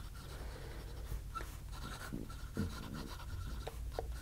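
18K gold medium nib of a Cross Townsend fountain pen scratching faintly across notebook paper as words are handwritten, in short separate strokes.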